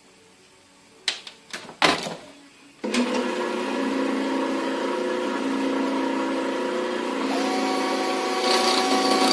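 A few sharp handling knocks, then an electric power tool motor starts about three seconds in and runs steadily with a humming tone. Its pitch steps up slightly, and it gets louder near the end.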